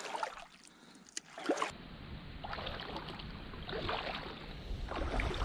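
Shallow seawater sloshing and lightly splashing in rock pools on a reef flat, with wind rumbling on the microphone. The first second and a half is quiet apart from a couple of sharp clicks; the rumble and splashing start after that.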